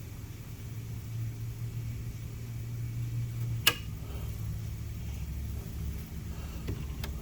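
Steady low hum of shop machinery, with a single sharp click about three and a half seconds in and a fainter click near the end.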